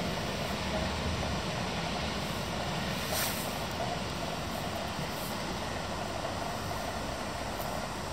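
SBB passenger train running away into a tunnel: its low rumble fades over the first second or two, leaving a steady noisy hiss. A brief hiss comes about three seconds in.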